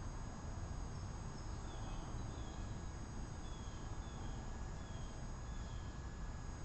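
Outdoor backyard ambience: a small bird gives a string of short, high, down-slurred chirps about one to two a second, over steady high insect trilling and a low background rumble.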